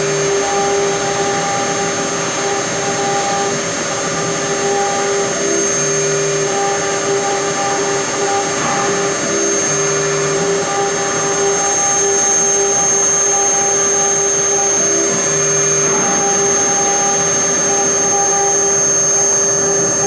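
CNC engraving machine's spindle running with a steady high whine as its bit cuts lettering into a double-colour plastic board. Lower hums switch on and off every few seconds.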